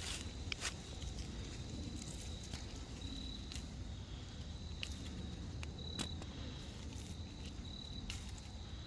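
Crickets trilling faintly at a high pitch, coming and going in short stretches. Scattered sharp clicks and rustles of tomato plants being handled sound over a steady low rumble.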